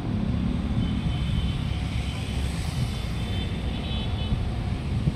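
Steady low rumble of engine noise passing by, with a hiss that swells and then fades around the middle.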